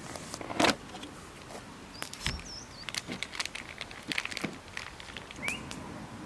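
Irregular sharp clicks and knocks, several in quick succession, with a couple of short high chirps, one rising near the end.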